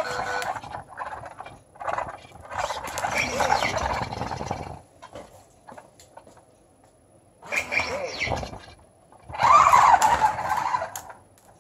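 Spin Master BB-8 toy droid beeping and warbling in three bursts of gliding electronic chirps, the loudest near the end, mixed with the whir of its motors as its head turns.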